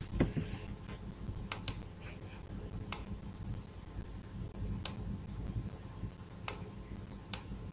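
Computer mouse clicks: about six sharp, short clicks, a quick pair then single clicks spaced a second or two apart, over a steady low hum.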